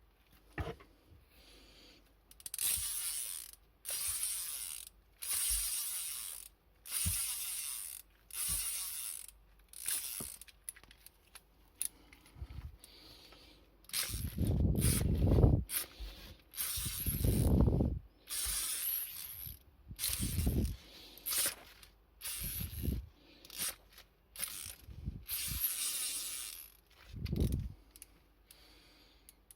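Precision 3/8-inch drive ratchet mechanism being swung back and forth in repeated short bursts, its pawl clicking rapidly over the fine-tooth gear. Two bursts near the middle are louder and heavier than the rest.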